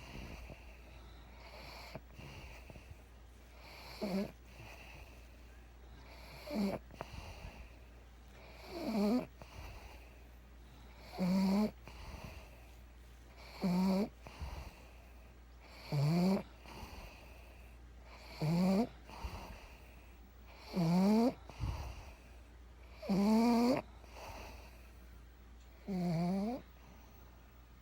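A pug snoring in its sleep: a pitched, rasping snore on each breath, about every two and a half seconds, growing louder over the first two-thirds.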